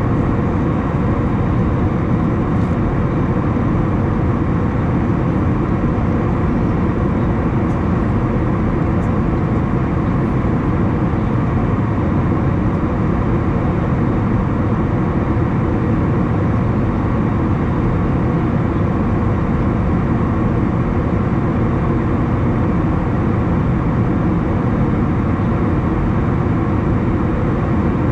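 Steady cabin noise of an Airbus A321 in flight: a constant engine drone and the rush of air past the fuselage, unchanging throughout.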